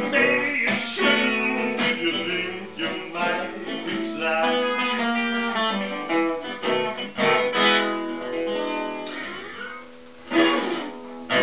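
Acoustic guitar playing the closing bars of a blues song, strummed and picked. The playing thins out and then ends with two loud final strums near the end.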